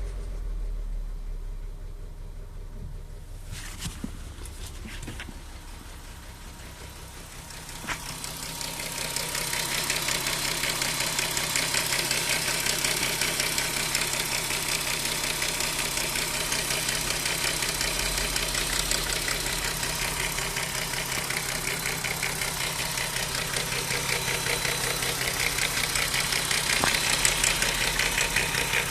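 Audi A3 3.2's VR6 engine idling with a fast metallic rattle and clatter from the timing chain case, growing louder about eight seconds in. The owner takes the rattle for worn timing chains, tensioners and guides, possibly with faulty camshaft adjusters as well.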